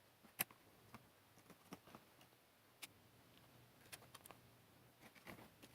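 Small, sharp clicks and taps at irregular intervals as frame parts and small screws of a quadcopter frame are handled and lined up, the clearest about half a second in and a few more close together near the end.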